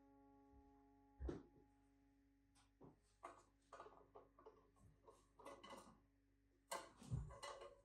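A held musical note fading slowly away, with a run of light, irregular knocks and taps over it. The taps come from about a second in and are loudest near the end.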